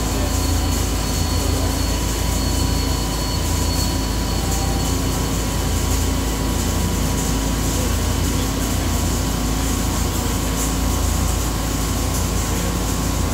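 Steady machinery noise from a robot-tended CNC machining cell: a constant low hum with a few thin steady whines over it, unchanging throughout.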